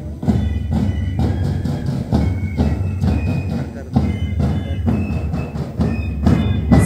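School marching band playing a march: drums beating a steady rhythm with flutes playing short high notes over them.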